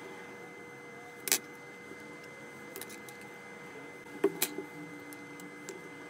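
Small hand tools and an iPhone being handled on a silicone repair mat: a few short, sharp clicks and taps. The loudest comes about a second in, and a quick run of three clicks follows a little past four seconds. Under them is a faint, steady hum.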